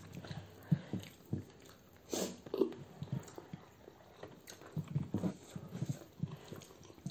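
Close-miked chewing and mouth noises of people eating rice and chicken gravy by hand: soft, irregular bites and lip smacks, with a louder brief mouth sound a little over two seconds in.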